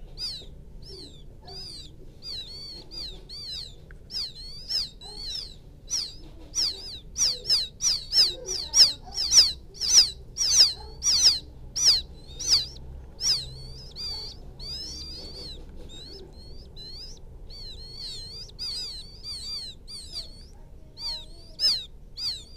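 Field quail chicks peeping: a long run of short, high, thin cheeps, about two a second, loudest through the middle. It is the call chicks give to bring the hen back to them.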